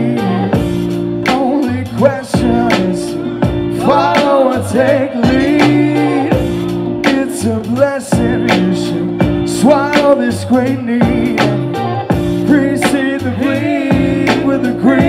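Live hip hop/groove band playing: a drum beat over held bass and keyboard chords that change every second or two, with a wavering lead melody line on top.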